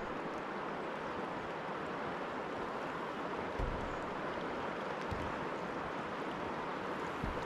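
Steady rush of a swollen, fast-flowing river, with a few soft low thumps.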